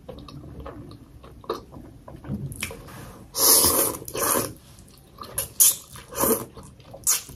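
A person slurping thukpa noodles from chopsticks and chewing. Quieter mouth sounds come first, then several loud slurps from about three seconds in.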